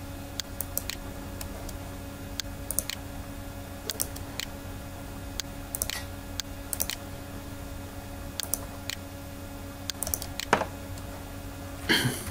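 Scattered clicks of a computer mouse and keyboard, often in quick pairs, over a steady low hum.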